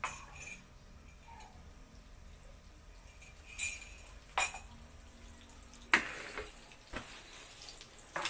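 Butter melting in a steel wok over a gas flame, faintly, broken by a few sharp metallic clinks and pops.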